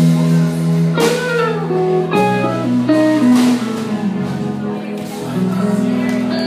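Live rock band playing electric guitar, bass guitar and drums, with held guitar notes that slide in pitch about a second in.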